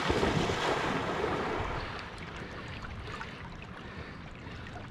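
A dog swimming and splashing across a river current, the splashing fading over the first couple of seconds, then the steady rush of flowing river water.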